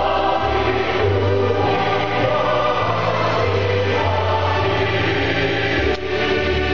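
Mixed choir singing a psalm setting in eight-part harmony, with keyboard accompaniment holding steady bass notes beneath the voices.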